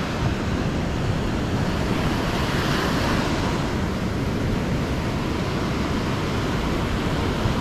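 Surf washing onto the beach in a steady wash, with wind noise on the microphone.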